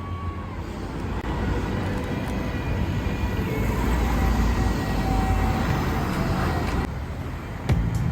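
Steady low rumble of a moving vehicle, with a change in the sound shortly before the end.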